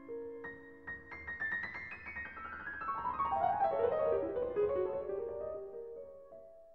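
Background piano music: a quick run of notes descending in pitch, fading out near the end.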